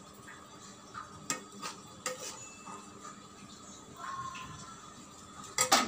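Metal spoon clinking and scraping against a steel cooking pot as vegetable masala is spread over a layer of rice. There are a few light taps, then a louder clatter of knocks near the end.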